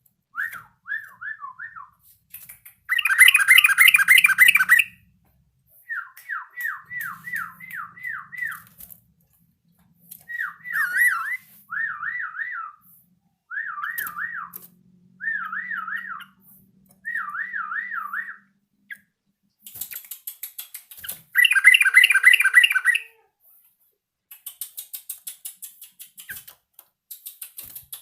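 Yellow-vented bulbul calling as it learns its song: short runs of quick repeated notes that swoop up and down, broken by two louder, harsher bursts about three seconds in and about twenty-one seconds in, and a run of fast ticking clicks near the end.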